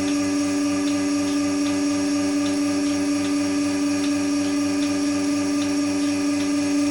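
Milking machine running: a steady motor drone with a regular, rhythmic pulsing under it.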